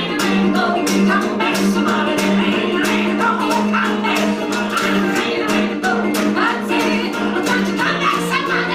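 Acoustic blues played live: a woman and a man singing over strummed acoustic guitar, with a washboard scraped and tapped in a steady rhythm.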